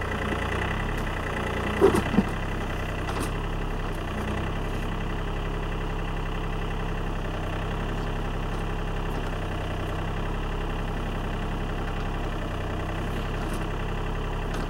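John Deere compact tractor's diesel engine running steadily while it powers a John Deere 47 backhoe digging. Two short loud sounds about two seconds in.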